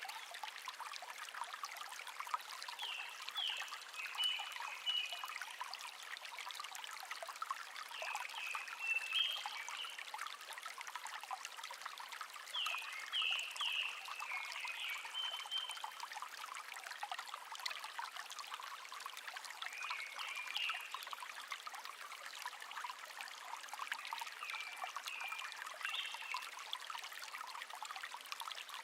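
A small stream trickling and babbling steadily, with a songbird singing short chirping phrases every few seconds over it.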